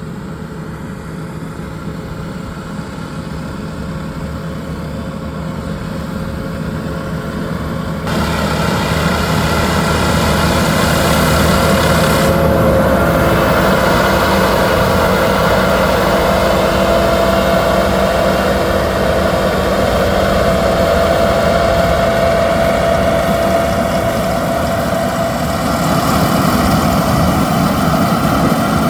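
Yanmar YH6115 six-row rice combine harvester running, its diesel engine droning steadily with machinery tones over it. It grows louder and steps up sharply about eight seconds in.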